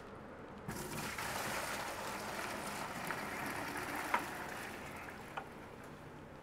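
Hydroponic B nutrient solution being poured from one bucket into another: a steady rushing pour starting just under a second in and tailing off, with a light knock about four seconds in.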